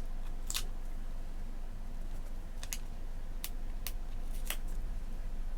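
A handful of short, sharp clicks and taps from paper and stickers being handled on a planner page, spaced irregularly, over a steady low hum.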